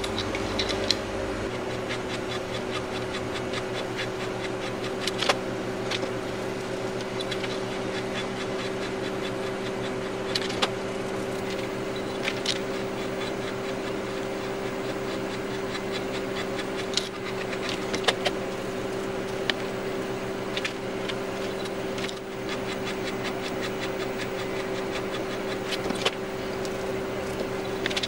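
Neway valve seat cutter turned by hand in a cylinder head, its blades scraping around the valve seat, with scattered clicks every few seconds. A steady background hum runs underneath.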